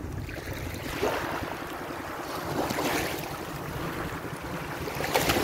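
Wind buffeting the phone's microphone, with small waves lapping at the shore and a few soft swells of surf noise.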